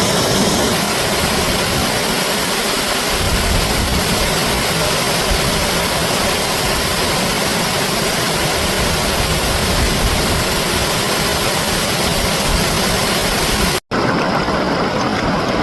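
Rushing water played in reverse: a steady, full hiss with no breaks. Near the end it cuts out for an instant and comes back duller, with less hiss on top.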